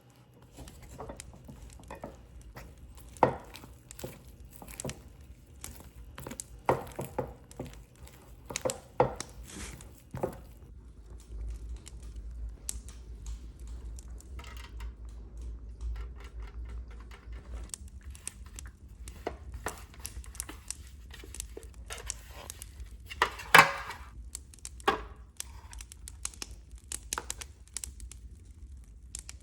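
Kitchen food-prep handling: scattered knocks and clinks of dishes and utensils, with paper or packaging crinkling, and a few sharper knocks, the loudest about two-thirds of the way through.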